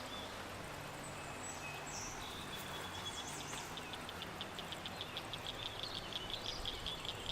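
Shallow creek water running steadily over a rocky bed. High chirps come in from about two seconds in, repeating about five times a second.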